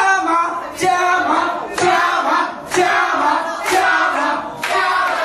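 A group of voices calling out in unison in a large hall, one loud call about every second, with clapping on the beat.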